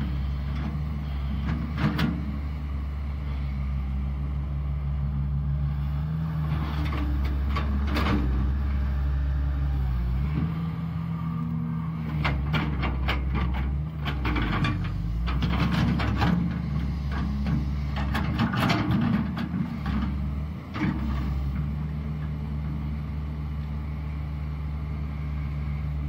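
CAT 320 hydraulic excavator's diesel engine running under load as it digs mud, its pitch dipping and rising from time to time, with scattered clanks and knocks from the working machine.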